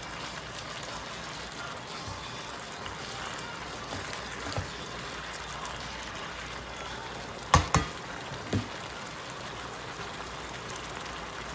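Chicken strips simmering in sauce in an electric skillet, a steady bubbling sizzle. A little past halfway come three short sharp knocks, the loudest sounds here.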